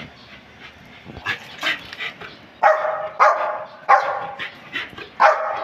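Small shaggy Lhasa Apso-type dog barking about four times in the second half, each bark sharp and trailing off, at a ball held out to it.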